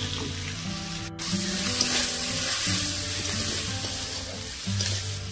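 Tomatoes and spices sizzling in hot oil in a kadhai, stirred with a spatula. The sound breaks off for an instant just after a second in and comes back with a louder sizzle.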